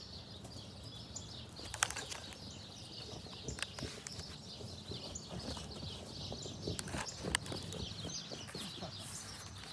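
Faint outdoor ambience: distant small birds twittering steadily, with a few scattered light clicks and rustles.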